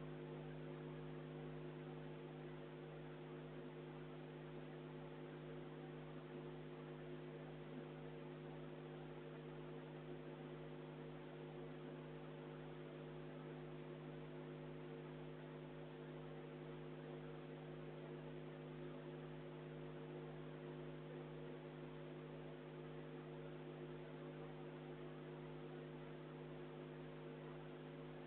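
Steady electrical mains hum: an unchanging buzz of several fixed tones over a faint hiss, with no game sound or crowd audible.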